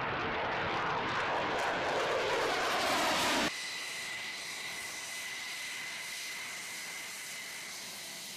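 F-16 fighter jet engine noise as the jet flies past, swelling slightly, then switching abruptly about three and a half seconds in to a quieter, steady high whine of an F-16's jet engine taxiing on the runway.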